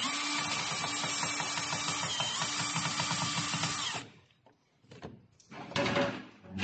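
Handheld power driver running steadily as it drives in a screw, then stopping about four seconds in. A few short handling clicks and knocks follow near the end.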